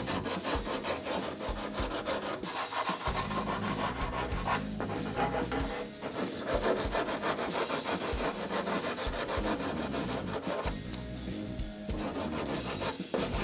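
A hand sanding block rasping back and forth over cured fiberglass matting and resin in rapid strokes, as the repair is roughed in and shaped to the panel's contours and edges.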